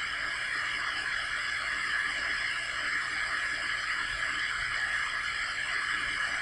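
Steady, unbroken hiss with a faint high whine running through it, level throughout.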